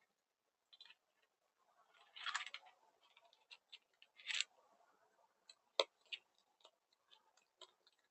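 Animals munching food, picked up by a security camera's microphone: irregular crunching and clicking, with louder crunchy bursts about two and four seconds in and one sharp click near six seconds.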